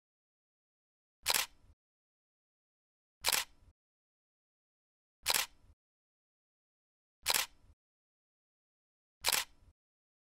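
Camera shutter clicks, five of them evenly spaced about two seconds apart, with dead silence between.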